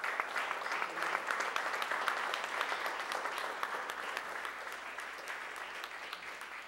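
Audience applauding: a dense patter of many hands clapping, strongest in the first few seconds and slowly thinning out toward the end.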